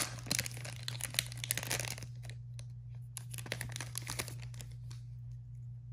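Foil wrapper of a Pokémon card booster pack being torn open and crinkled in the hands: a sharp rip at the start, dense crackling for about two seconds, then scattered crinkles and ticks.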